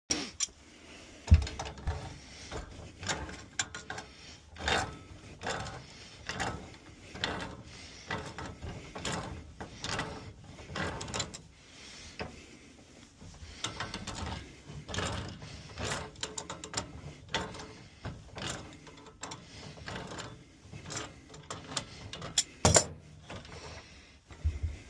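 Irregular clicks, clinks and knocks of hand tools and metal parts being handled, with sharp knocks about a second in and near the end.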